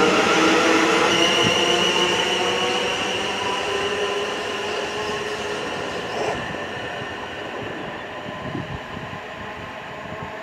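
South Western Railway Class 444 Desiro electric multiple unit running away: a whine of several steady tones over its running noise on the rails, fading steadily as it recedes.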